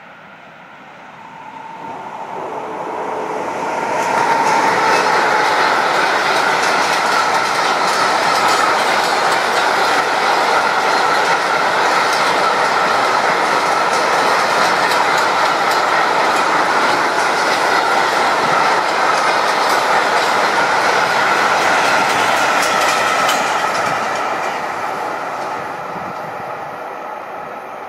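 Electric freight train of container wagons passing at speed. The wheel noise grows over the first few seconds as the locomotive approaches and stays loud and steady for about twenty seconds, with a clickety-clack over the rail joints and a held high ringing tone. It fades near the end as the last wagons go by.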